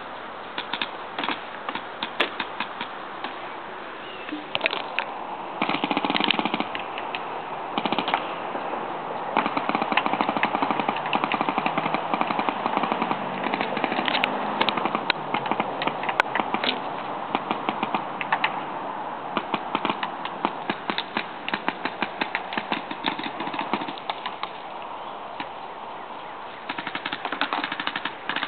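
Paintball markers firing in rapid strings of shots, sharp pops many times a second, with short pauses between strings and the busiest firing through the middle.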